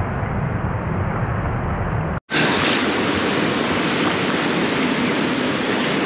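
Sea surf washing and churning around concrete pier pilings, a steady rushing noise with wind on the microphone. About two seconds in, the sound drops out for an instant and comes back brighter.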